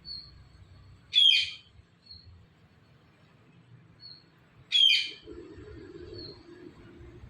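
Ring-necked parakeet giving two loud, harsh calls about three and a half seconds apart, with faint short high whistles between them.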